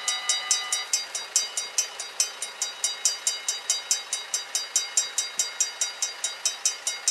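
Level-crossing warning bells ringing rapidly, about four to five strikes a second, while the barriers lift after the train has passed.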